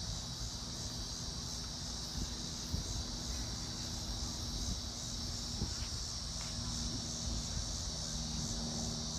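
Steady, high-pitched insect chorus with a faint low rumble beneath it.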